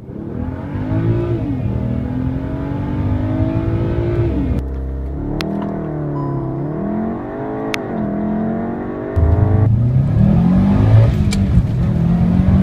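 Car engines heard from inside the cabin under hard acceleration, in three short clips one after another: a BMW, a Volkswagen Golf and a Subaru Impreza WRX STI. The engine pitch climbs and falls back sharply at each upshift. The sound changes abruptly about four and a half and nine and a half seconds in, and the last clip is the loudest.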